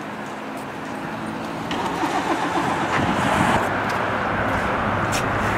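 Steady outdoor street noise of road traffic, rising over the first three seconds and then holding, with a few short clicks.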